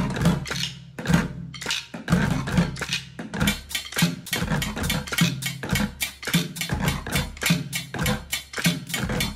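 Bucket drumming: several players strike upturned plastic buckets with drumsticks in a fast, steady rhythm. The strikes grow denser about three seconds in.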